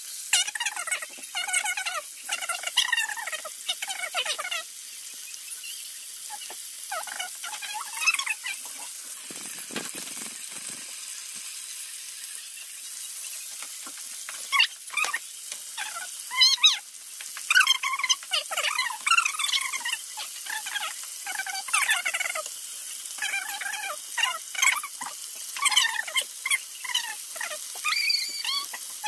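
Hot oil sizzling under breaded chicken strips frying in a pan, played back fast, with squeaky, chipmunk-like chatter of sped-up voices coming and going over it.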